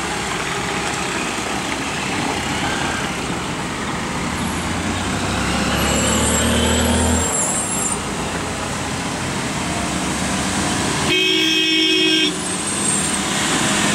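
Heavily loaded lorry's diesel engine running steadily as the truck pulls round a tight hairpin bend. About eleven seconds in, a vehicle horn sounds once for about a second.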